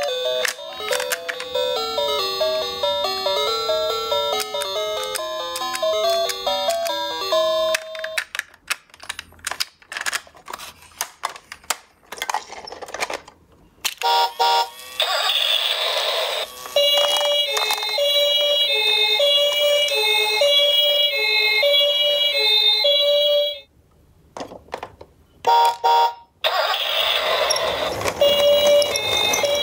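A stepping electronic melody, then about eight seconds in a run of scattered plastic clicks and clatters. Then a toy ambulance minicar's electronic two-tone siren alternates steadily between a higher and a lower note over a rolling hiss; it cuts out briefly and starts again near the end.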